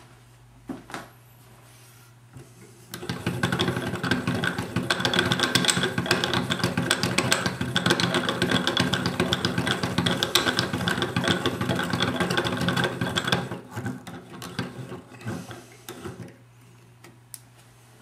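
Wooden cam mechanism of a hand-cranked automaton clattering rapidly as the crank is turned. The rattle starts about three seconds in and dies away over the last few seconds.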